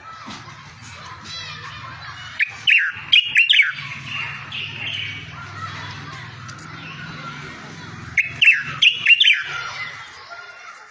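A songbird singing a tutor song: soft continuous warbling broken by two loud phrases of sharp, quickly falling notes, about two and a half seconds in and again about eight seconds in, over a low steady hum.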